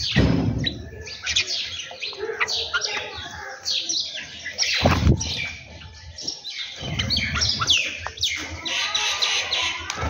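Sparrows and bulbuls chirping and calling over one another, with several rushes of wing flaps as birds take off and land. The loudest flap comes about five seconds in.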